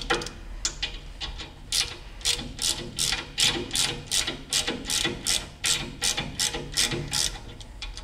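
Socket ratchet wrench clicking in quick back-and-forth strokes, about three a second, as it unscrews a nut on the washing machine's shaft housing.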